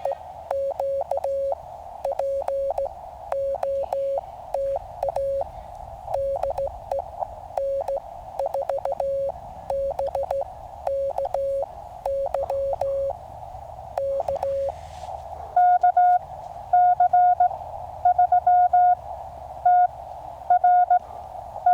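Morse code (CW) tones keyed in dots and dashes from a QCX mini QRP transceiver, over a steady band of receiver hiss. For about the first fifteen seconds one lower-pitched signal is keyed. After that a louder, higher-pitched signal sends, the next station calling in.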